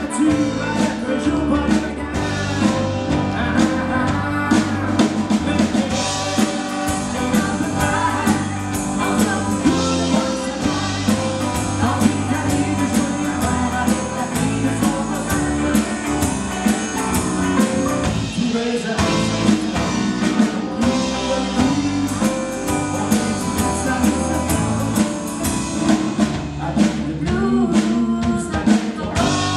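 Live rock band playing a song: a woman singing lead over electric bass, electric guitar and a drum kit.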